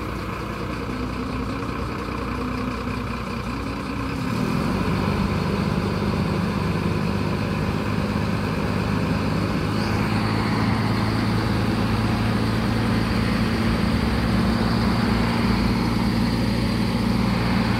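Mercedes-Benz OH 1526 bus's rear diesel engine idling steadily, stepping up to a slightly higher, louder idle about four seconds in.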